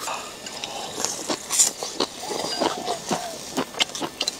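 Close-up eating sounds: a mouthful of crisp blanched beef tripe being chewed and slurped, with many short wet clicks and smacks.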